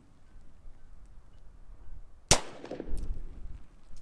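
A single rifle shot about two seconds in, sharp, with a short echo trailing off: a Knight's Armament SR-15, a 5.56 mm AR-15-type rifle, fired once.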